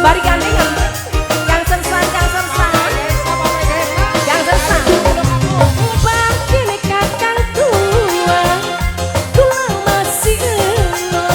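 Live tarling dangdut band music: a steady, dense drum beat with a bending melodic lead line over it.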